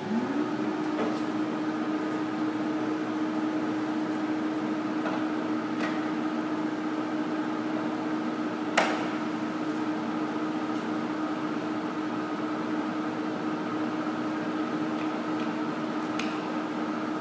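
A 28-inch American Pacemaker engine lathe running: its 15-horsepower drive and headstock gearing give a steady hum, which rises in pitch for a moment at the start as the spindle comes up to speed. A few light clicks come from the carriage controls being worked, with one sharp click near the middle.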